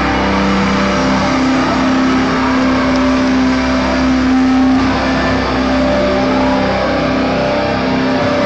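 Loud live band music, its held low notes shifting to a new pitch every second or two over a dense, steady wash of sound.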